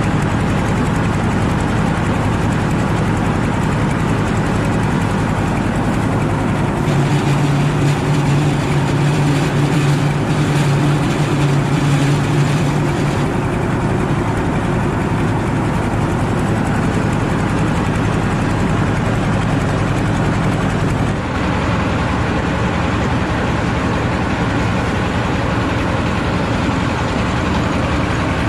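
Diesel engine of a mobile rice huller running steadily, its note changing a few seconds in and again about three quarters of the way through.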